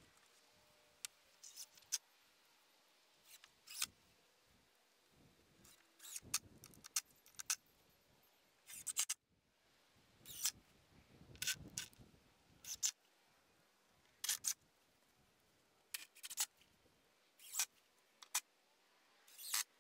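Scattered short clicks, taps and scrapes of lumber and hand tools being handled on wooden boards: a 2x4 and a square set in place, and a cordless drill picked up. No steady drill motor is heard.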